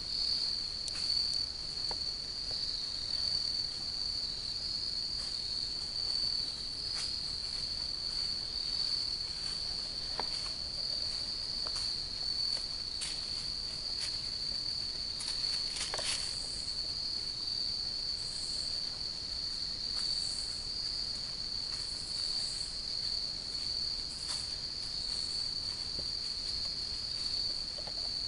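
A steady, high-pitched chorus of crickets, with scattered light taps and one louder tap just past halfway.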